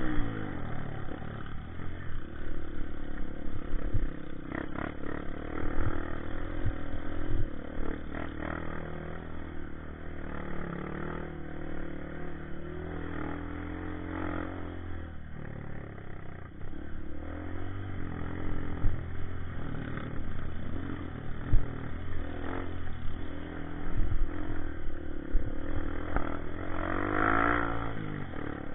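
Honda CRF150 dirt bike's single-cylinder four-stroke engine running under load on a rough dirt trail, its revs rising and falling with the throttle, with knocks and rattles from the bike going over bumps. The revs climb and drop again near the end.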